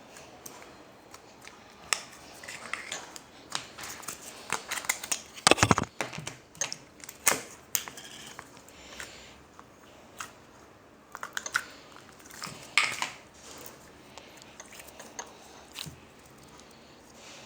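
Slime being squeezed and poked by hand, giving irregular crackling clicks and pops, with the loudest cluster about five and a half seconds in and another near thirteen seconds.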